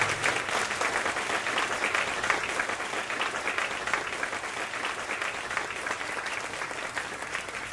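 Theatre audience applauding after a song, the clapping gradually fading out.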